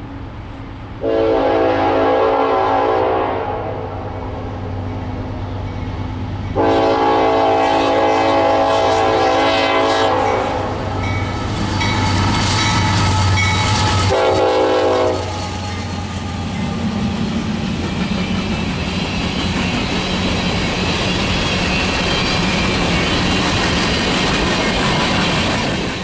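Locomotive air horn sounding three long blasts, each a chord of several steady tones. This is followed by the steady rumble and wheel clatter of the train rolling past.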